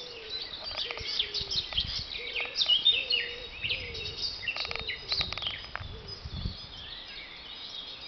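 Several woodland songbirds singing at once in overlapping high chirps, whistles and quick trills, with a lower note repeated about twice a second underneath and a low rumble of wind on the microphone.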